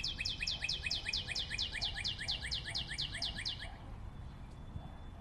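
A rapid, bird-like chirping trill of short falling chirps, about six a second, that stops about three and a half seconds in.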